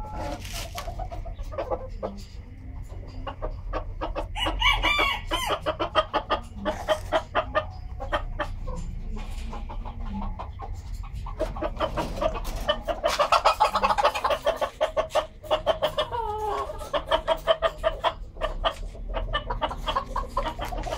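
Tan Chau bantam chickens clucking in long rapid runs, with a rooster crowing.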